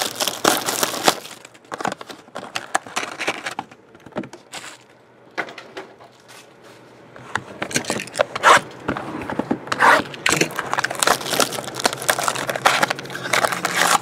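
Plastic shrink-wrap being torn and crinkled off a trading-card box in repeated crackling bursts. There is a quieter lull about four to seven seconds in.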